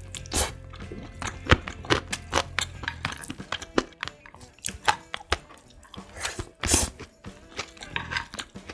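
Close-miked eating sounds: a person chewing and biting, a quick irregular run of short crunches and smacks, with a louder, longer one a little after six seconds in.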